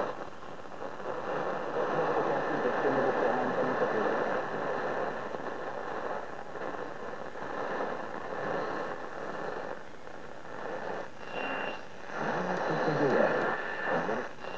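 Medium-wave AM reception on 639 kHz through a small portable radio's speaker: a steady wash of static and hiss with faint, muffled voices from the broadcast.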